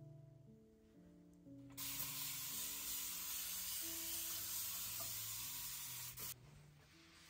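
A steady spray hissing for about four and a half seconds, starting about two seconds in and cutting off sharply, over soft background music.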